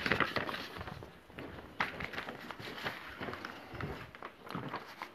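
Footsteps and the rustling and knocking of a handheld phone being carried while walking, with a few sharp clicks.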